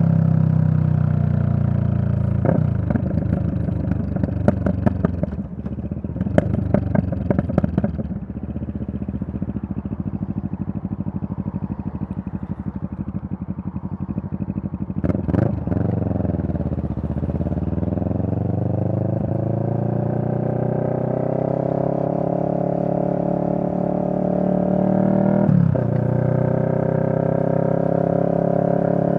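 CFMoto 650NK parallel-twin motorcycle engine running under way. About halfway through, after a brief sharp blip, the revs fall and then climb back and level off. Another short blip comes near the end.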